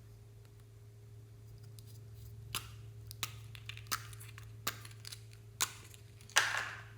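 Slime being pressed and pulled by hand: a series of short sticky pops and clicks about once a second, ending in a louder crackling squelch that fades.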